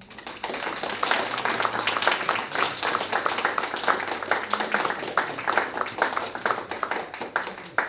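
Small seated audience applauding, many hands clapping, building up within the first second.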